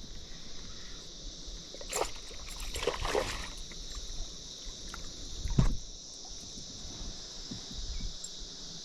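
Knocks and water sounds from a small boat, a few seconds apart, with the loudest knock about two-thirds of the way through. Over them, a steady high drone of insects.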